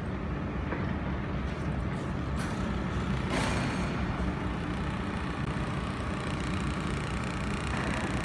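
Steady low machine hum from a laser welding station, with a short burst of noise about three and a half seconds in.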